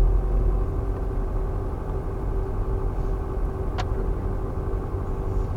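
Car moving slowly, a steady low rumble of engine and road noise heard from inside the cabin, with one sharp click about two-thirds of the way through.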